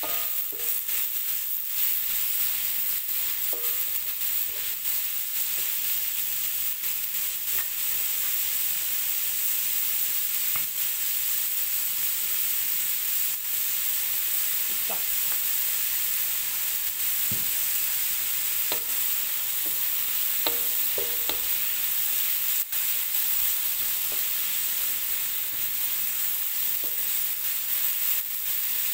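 Sliced bamboo shoots sizzling in hot oil in an aluminium wok, stirred with a spatula that now and then scrapes and clicks against the metal.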